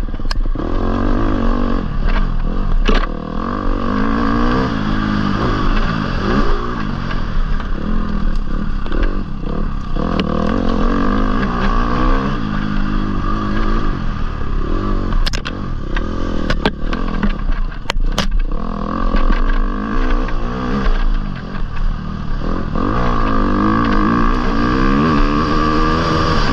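Dirt bike engine revving up and down through the gears as it is ridden hard along a rough dirt trail. A few sharp knocks and clatters come from the bike over the rough ground, around three seconds in and again midway.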